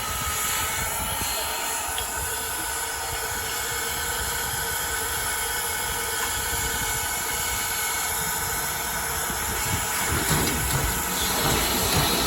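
Norfolk & Western No. 475 steam locomotive standing with steam hissing steadily over a low rumble. About ten seconds in, a rougher low rumble with uneven thumps grows louder.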